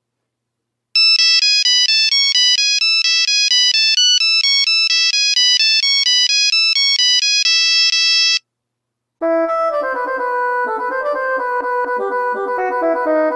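Nokia 3310 monophonic ringtone: a quick melody of single beeping notes, starting about a second in and running about seven seconds. After a short gap, a fuller, lower tune with several notes at once begins.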